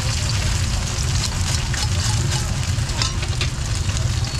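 Oil sizzling around garlic chive cakes frying on a large flat metal pan, with scattered light clicks and scrapes of a metal spatula and tongs against the pan. A steady low rumble runs underneath.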